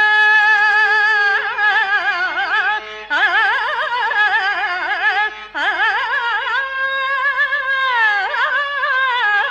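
A single voice singing a Telugu stage-drama verse (padyam) in Carnatic style. It holds one long note, then moves into fast ornamented turns that waver up and down, with brief breaths about three and five and a half seconds in.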